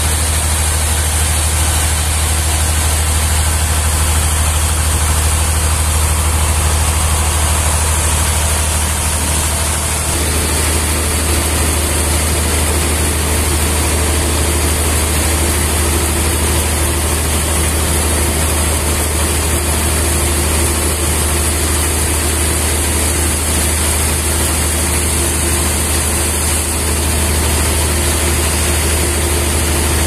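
Large band sawmill running steadily, its drive giving a loud, constant low hum; about ten seconds in, a steady higher-pitched hum joins it.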